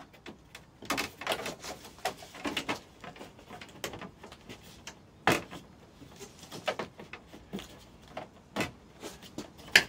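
Black plastic JustKampers radiator grille on a VW T5 clicking and knocking against the front panel as it is pressed and worked onto its clips, which are reluctant to engage. Scattered light clicks, with a sharper knock about five seconds in and another near the end.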